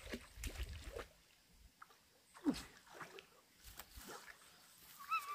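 Water splashing and sloshing as a person dives under and surfaces in a river, with a louder splash about two and a half seconds in. A short call is heard near the end.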